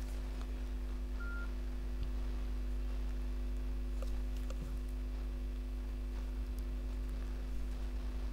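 Steady electrical hum and hiss of the recording with no speech, with a few faint clicks and one short high beep just over a second in.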